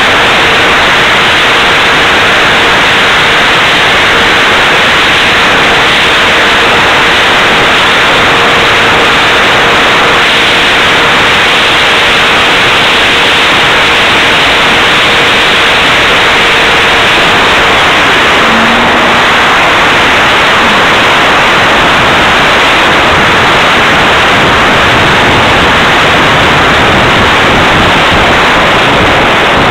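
In-flight noise of an RC electric ducted fan jet picked up by its onboard camera: a loud, steady hiss like static from fan and wind rush, with a faint steady tone that fades out a little past halfway.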